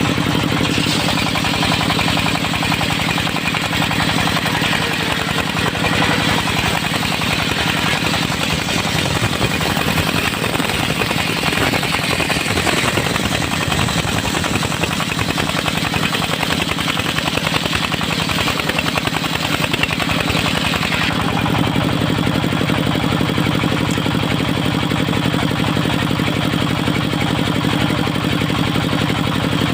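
Engine of a portable circular sawmill running steadily while the circular blade cuts through a teak log, a hissing rasp over the engine for about twenty seconds; the cut ends about two-thirds of the way through, leaving the engine running on its own.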